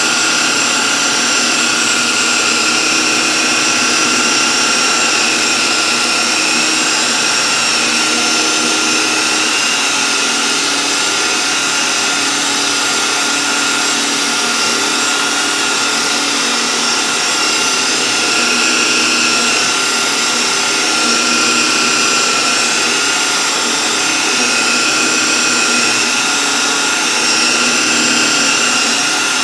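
Electric rotary polisher running steadily at medium speed with a whine that holds its pitch, its foam pad buffing scratch-repair compound on car paint.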